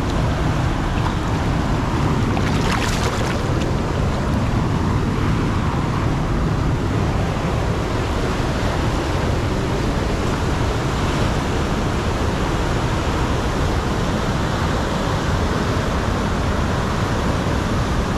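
River water rushing steadily past a rocky bank, with a brief splash about three seconds in from a hooked fish thrashing at the surface.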